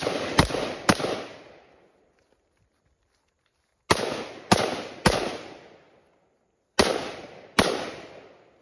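Scoped AR-style rifle firing eight shots in three quick strings (three, three, then two), the shots about half a second apart, each trailing off in echo.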